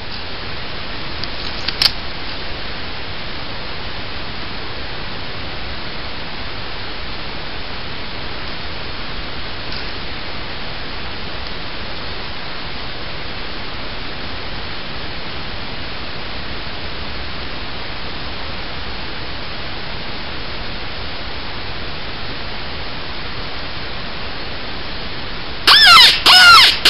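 Steady, even hiss with a single sharp click about two seconds in. In the last second, loud, repeated wavering cries begin.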